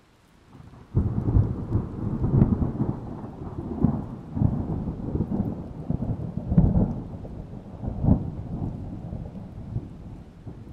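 A deep, rolling rumble that sets in about a second in and rises in several loud swells.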